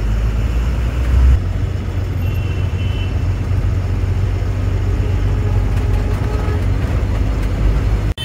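Steady low rumble of a bus engine and road noise, heard from inside the driver's cabin while the bus drives through traffic.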